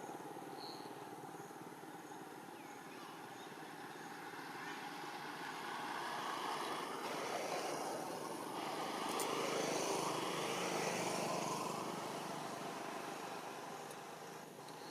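A motor vehicle passing, its engine noise swelling to its loudest about two-thirds of the way through and then fading, over steady outdoor background noise.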